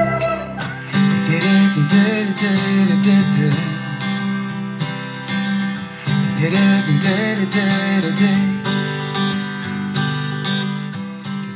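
Song with strummed acoustic guitar played through a Sony HT-S200F soundbar; a new track takes over about a second in.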